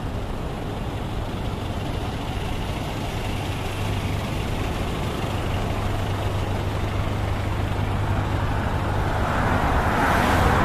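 Road traffic passing on a city street: a steady low hum of vehicle engines and tyres, with one vehicle getting louder as it passes close near the end.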